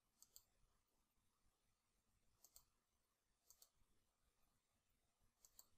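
Computer mouse clicking faintly in four quick pairs a second or two apart, with near silence between.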